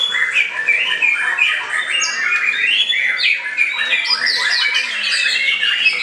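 White-rumped shama singing a long, unbroken run of rapid, varied whistles and harsh notes, with other caged songbirds singing over one another.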